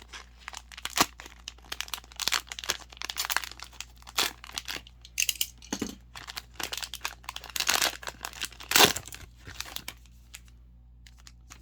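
Plastic cello wrapper of a trading-card pack crinkling and tearing as it is pulled open by hand: a run of sharp irregular crackles, the loudest about nine seconds in.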